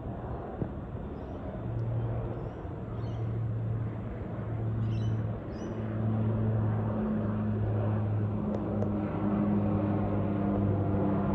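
Steady low engine drone with an even hum, getting louder about halfway through.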